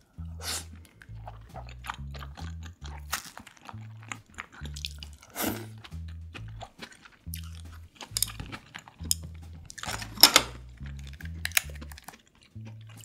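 Close chewing and crunching of snow crab, with crisp cracks of crab shell being pulled apart, as a string of short sharp sounds, the loudest a little after the middle. Underneath runs background music with a low stepping bass line.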